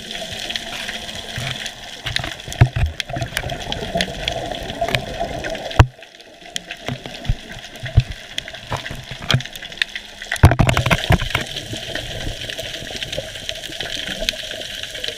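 Underwater sound picked up by a camera in its housing: a steady crackle of scattered clicks, with louder gurgling bursts of bubbles about two and a half seconds in and again around ten and a half seconds, typical of a scuba diver's exhaled breath from the regulator. The sound drops out abruptly for a moment just before six seconds.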